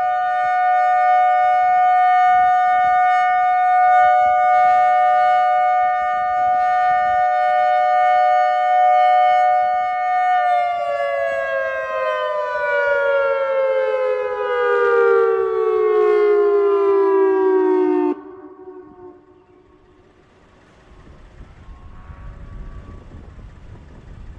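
Federal Signal Thundermod 4016 outdoor warning siren sounding its steady Alert tone: a loud, unwavering two-note chord for about ten seconds. The pitch then slides steadily down as it winds down, and it cuts off abruptly about eighteen seconds in, leaving wind rumbling on the microphone.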